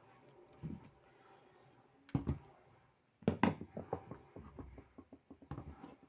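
Clicks and light knocks of small screws and card-reader parts being handled: a few separate knocks, then a quick run of clicking in the second half.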